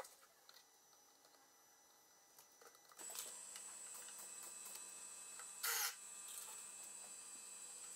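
Mostly near silence with a faint steady hum; a little before six seconds in, a cordless drill-driver gives one brief burst, driving a screw into a cabinet hinge mounting plate.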